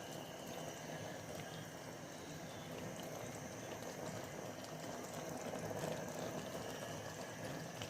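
A pot of stew simmering, with a steady low bubbling.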